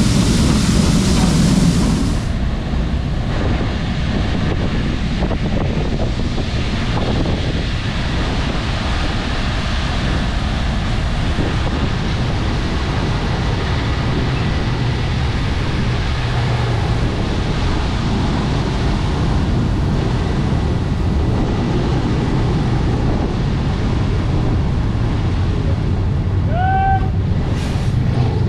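Farm machinery running steadily, a loud even rush with a low rumble; the sound changes abruptly about two seconds in, and a short rising squeak or beep sounds near the end.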